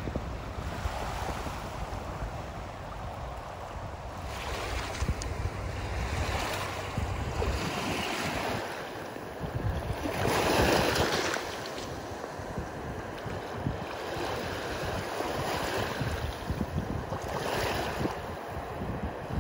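Small waves washing up and breaking on a sandy shore, swelling and ebbing, with the biggest surge about halfway through and another near the end. Wind rumbles on the microphone, mostly in the first few seconds.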